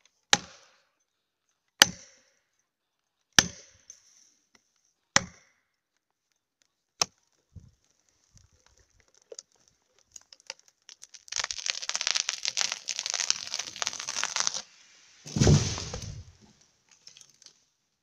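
An axe driving an orange plastic felling wedge into the back cut of a standing tree: five sharp blows about one and a half to two seconds apart. About eleven seconds in, the tree gives way with about three seconds of dense cracking and crashing, then hits the ground with a heavy low thud.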